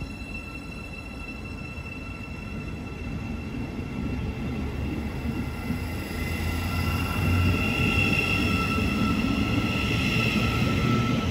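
Great Northern electric multiple unit moving off along the platform. Its traction motors whine and its wheels rumble on the rails, steadily growing louder.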